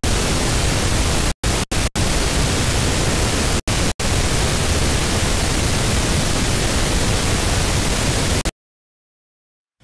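Television static: an even, loud hiss with four or five short dropouts in the first four seconds, cutting off suddenly about eight and a half seconds in, followed by silence.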